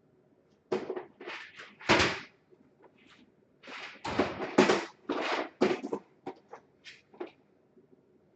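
Rummaging through parts: a run of about a dozen sharp clattering knocks and rustles over five or six seconds, the loudest near two seconds in and around four to five seconds in.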